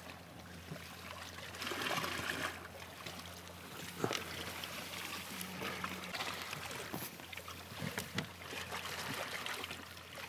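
Water trickling and splashing steadily at a small boat, over a faint steady low hum, with a few sharp knocks about four and eight seconds in.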